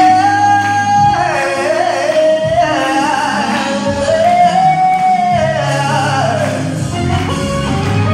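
Live gospel singing through a PA: a lead voice holds long notes that bend up and down over instrumental backing with a steady bass.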